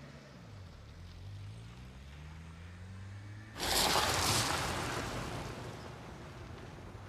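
A vehicle engine hums low, its pitch rising slowly. About three and a half seconds in, a sudden loud rushing noise cuts in and fades away over a couple of seconds.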